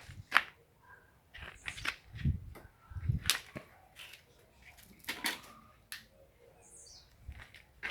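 Cats eating fish close to the microphone: irregular sharp crunches and clicks of chewing, with a couple of dull thuds.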